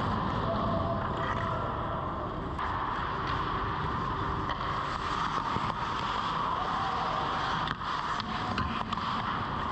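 Ice hockey skates scraping and carving on rink ice over a steady background noise, with a few short, sharp clacks about eight seconds in.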